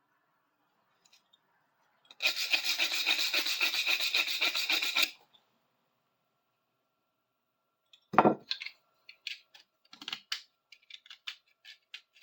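Rapid brushing strokes scrubbing dirt and rust off a small metal hinge for about three seconds. Later comes a heavier knock, followed by a series of light clicks and taps.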